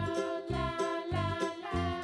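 Background music with sustained tones over a steady low beat, about two beats a second.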